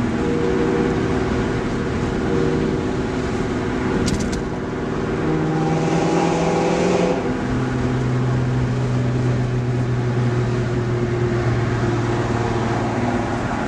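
Car engine and road noise heard from inside the moving car's cabin, a steady drone. The engine note rises a little partway through, then drops suddenly about seven seconds in.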